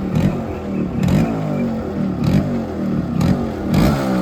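Yamaha RX-Z's two-stroke single-cylinder engine revved in repeated quick throttle blips, about one a second, the pitch jumping up and falling back each time. The exhaust note is very loud and deep.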